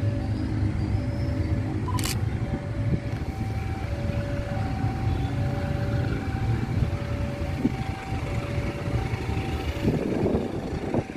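Steady low diesel rumble of a CC201 diesel-electric locomotive pulling a passenger train slowly out of the station toward the listener. Over it a two-note tone repeats, alternating low and high about once a second, with a couple of sharp clicks.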